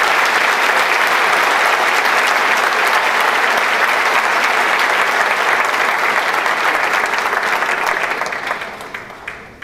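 Audience applauding steadily in a large hall, the clapping dying away near the end.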